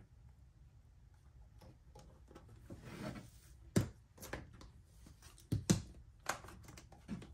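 Handling noise at a whiteboard: a soft rustle, then a handful of sharp knocks and clicks as scissors and a plastic clip are hung on the corner of the board's frame. The loudest knocks come about four seconds in and a close pair about five and a half seconds in.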